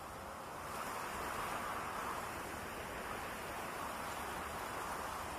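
Wind blowing through tall feathery grass: a steady rushing that swells about a second in.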